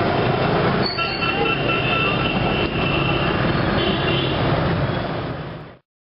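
Busy street traffic of passing motorbikes: engines running and tyres on the road, with horns sounding high and steady from about a second in for a few seconds. The sound cuts off abruptly just before the end.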